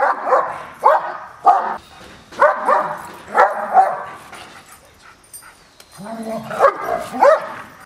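A dog barking in short, sharp barks about once a second, then after a short lull a longer run of barks near the end.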